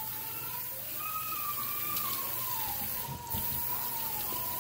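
Kitchen tap running onto diced potatoes in a wire-mesh colander in a stainless steel sink, splashing as a hand rubs the potatoes clean. A faint, slowly wavering tone rides over the steady rush of water.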